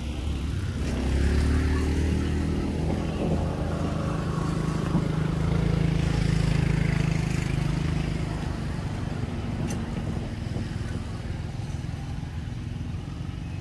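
A motor vehicle's engine running, growing louder about a second in, with its pitch shifting for a few seconds, then easing off after the middle of the stretch.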